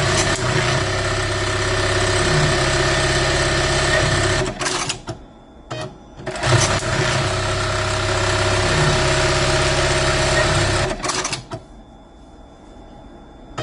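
Juki LBH-1790S buttonhole sewing machine running two sewing cycles in a row. Each runs steadily for about four and a half seconds and stops with a few sharp clicks, and the machine then falls to a faint hum for the last couple of seconds.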